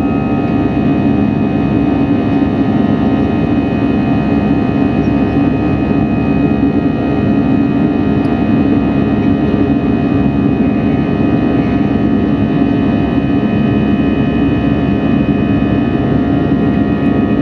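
Airbus A320-200 jet engines running, heard inside the passenger cabin: a steady, loud rumble with several steady whining tones above it, unchanging throughout.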